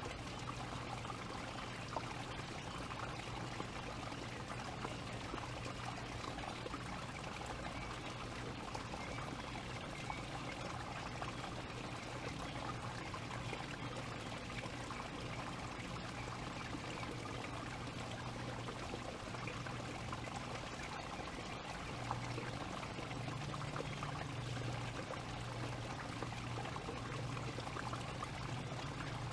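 A steady rushing noise like running water, with a low steady hum underneath that grows slightly louder about three-quarters of the way through.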